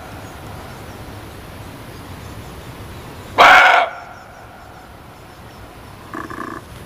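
Muntjac (barking deer) giving one loud, short bark about halfway through, then a second, fainter and shorter call near the end, over a steady background hiss.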